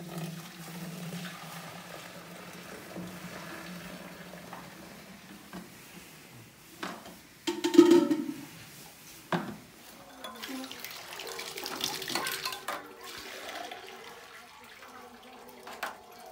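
Fresh milk pouring and splashing from a steel pot into a plastic can, with a few sharp knocks of steel vessels a little past the middle, the loudest about eight seconds in.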